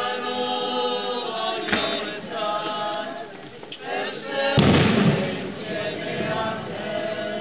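Congregation singing a hymn together outdoors, voices held on long notes. A thump about two-thirds of the way through is the loudest moment.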